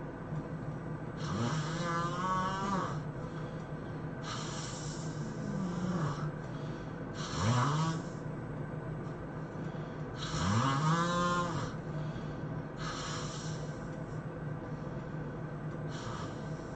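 A person snoring in their sleep, one rasping snore every two to three seconds, several rising in pitch as the breath is drawn. A steady low hum runs underneath.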